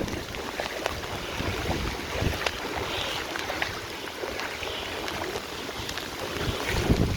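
Fast-running floodwater in a creek swollen into a river, a steady rushing hiss, with wind buffeting the microphone near the end.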